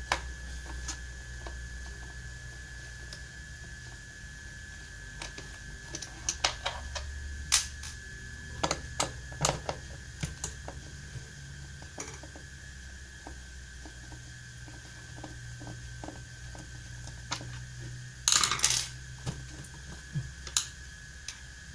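Scattered small clicks and taps of plastic and metal as the air filter housing of a Honda Vario 125 scooter is worked loose by hand, with a short burst of denser clatter about eighteen seconds in. A faint steady high hum lies under it.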